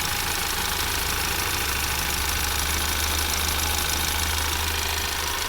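Ford Maverick's 2.0L EcoBoost turbo four-cylinder at a slow idle, heard close to the accessory belt, pulleys and alternator: a steady low hum under an even whir and hiss. Normal running sounds for this engine.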